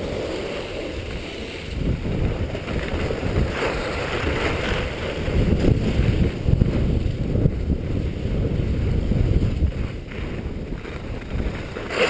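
Wind buffeting the microphone during a downhill ski run, a steady rumble that rises and falls in gusts, with skis hissing and scraping over packed snow.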